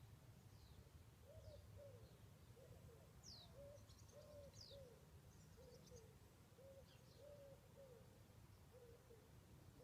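Faint bird calls: a run of short, low hooting notes repeated about every half second to second, with a few thin high chirps from small birds, over a steady low rumble.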